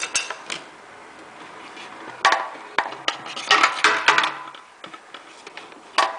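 Hard plastic parts clicking and knocking as they are handled and fitted together, with a cluster of knocks about two seconds in and a busier run of clatter near the four-second mark.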